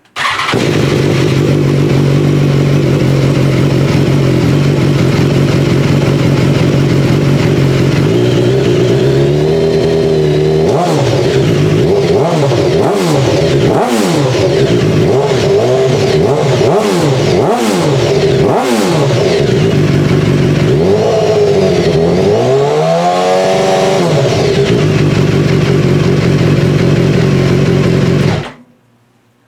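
BMW S1000XR inline-four motorcycle engine running through a Firetong aftermarket exhaust: it idles steadily, then is blipped through a series of quick revs that rise and fall about once a second, with one bigger rev near the end before it settles back to idle. The exhaust note is much higher-pitched than expected, not quiet but not as loud as feared.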